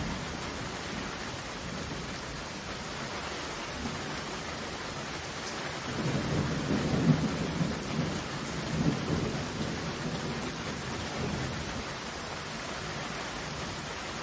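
Steady heavy rain falling, with a roll of thunder that swells about six seconds in, peaks twice and dies away by about ten seconds.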